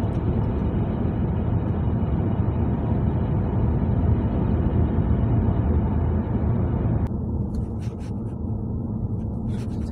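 Steady road and engine rumble inside a moving car's cabin, strongest in the low end. About seven seconds in, the higher tyre hiss drops away suddenly and a few faint ticks follow.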